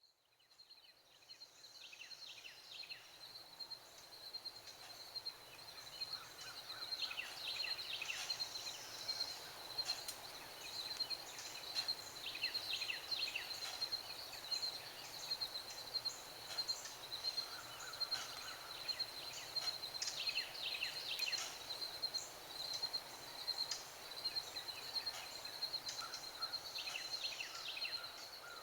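Outdoor morning ambience: birds singing in short bursts of quick, falling notes every few seconds, over a steady high-pitched pulsing trill.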